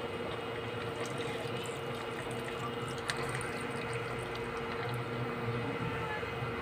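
Liquid bubbling and trickling in a steel pot of simmering chicken liver and gizzard adobo sauce, over a steady low hum.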